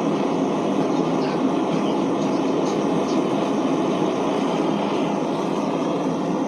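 Blacksmith's forge running with a steady, even roar.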